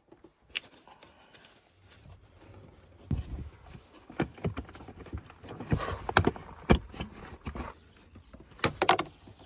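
Scattered clicks, knocks and rattles of plastic interior trim being handled and pulled off by hand, with a cluster of sharper knocks in the second half.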